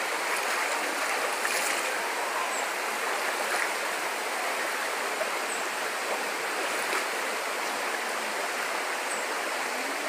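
Shallow rocky stream rushing over stones, a steady, even water noise.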